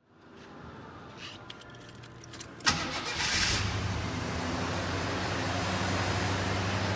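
1979 Jeep Cherokee Chief's engine starting: a few light clicks, then it catches with a sharp burst about three seconds in and settles into a steady idle.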